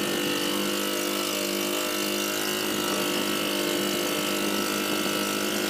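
Boat engine running steadily while under way, with a constant hiss of wind and water.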